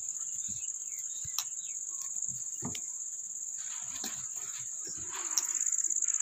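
A cricket chirring in one steady, high-pitched trill. Under it, soft squishing and scraping of hands kneading wheat-flour and jaggery batter in a steel bowl, a little louder from about four seconds in.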